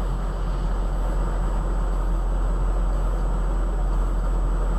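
Steady low rumble of a vehicle driving along: engine and road noise with no change in pace, and a thin high whine above it.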